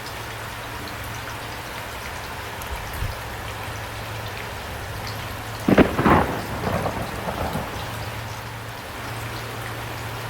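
Steady rain falling, with a crack of thunder a little over halfway through that rumbles on for about two seconds before fading back into the rain.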